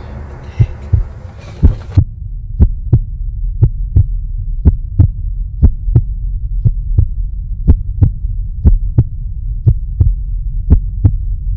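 Heartbeat sound effect: a double 'lub-dub' thump about once a second over a steady low hum. The background room hiss drops out about two seconds in, leaving only the beats and hum.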